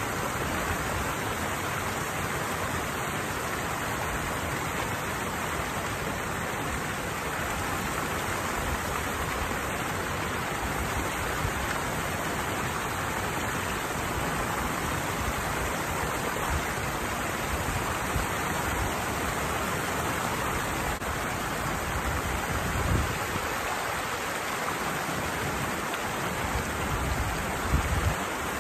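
Water pouring down a small cascade in a channel: a steady rushing hiss, with a couple of brief low bumps about two-thirds through and near the end.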